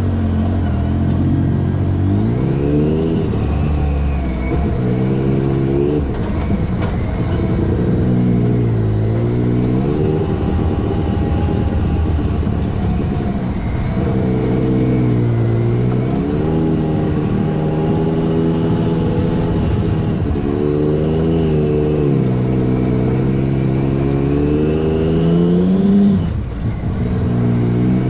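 Side-by-side UTV engine under way, its revs rising and falling every few seconds as the throttle is worked, with a sharper rev and quick let-off near the end.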